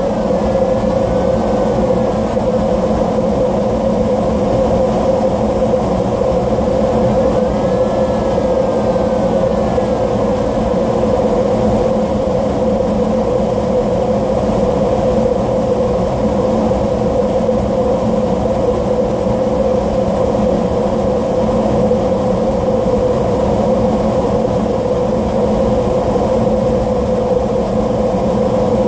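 Air rushing over the canopy inside the cockpit of a DG1000 two-seat glider in flight: a loud, unbroken rush with a constant hum in it. Faint wavering high tones come and go briefly, about seven to ten seconds in.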